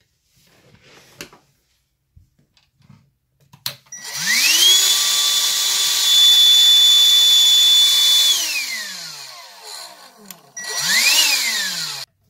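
Black & Decker CHV1410L hand vacuum's motor and fan, running on a freshly fitted lithium-ion battery pack, switched on with the housing open: it whines up to speed, runs steady for about four seconds, then winds down. Near the end it is switched on again briefly, spinning up and straight back down. A few light handling clicks come before it.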